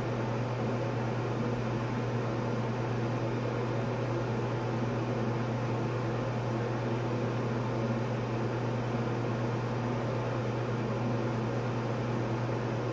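Bathroom ceiling exhaust fan running with a steady low hum.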